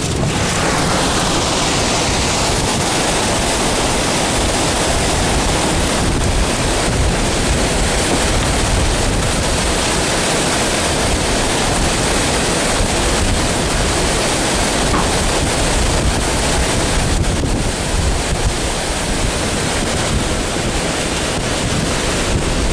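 Tornado winds of about 70 mph carrying sand and dirt past a vehicle: a loud, steady rush of wind with heavy wind noise on the microphone.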